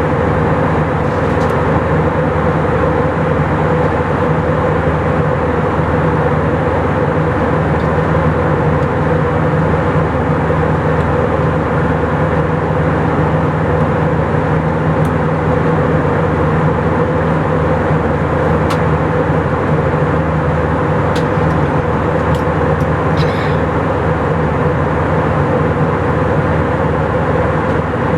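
Steady roar of an Airbus A319 heard from inside the passenger cabin, engines and airflow holding an even level, with a low hum under it. A few faint clicks come in the second half.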